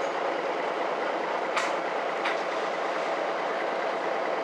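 Cabin ride noise inside a MAN NG 313 articulated diesel city bus under way: a steady drone of engine and running gear with a faint hum, and two short knocks from the body less than a second apart near the middle. Recorded through an old camcorder's microphone.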